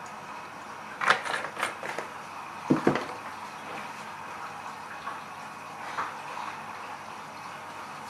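Cooking oil poured into a nonstick frying pan, with a few sharp clicks and knocks between about one and three seconds in, the last one a dull thud, as the bottle and utensils are handled. Under it runs a steady low hiss.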